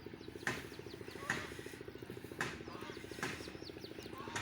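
A small engine running steadily, with sharp knocks roughly once a second and birds chirping.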